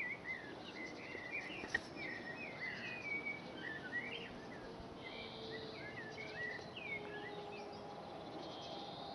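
Birds chirping, many short rising and falling calls overlapping, with one sharp click a little under two seconds in.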